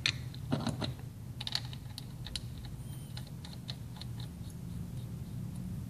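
Irregular light clicks and taps of hands handling a vape mod and dripping atomizer, thickest in the first few seconds, over a steady low hum.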